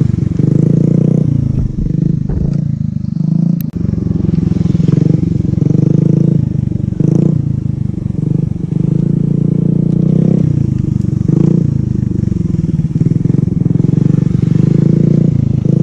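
Small Honda motorcycle engine running close by, its revs rising and falling again and again as it is ridden slowly around a tight cone course.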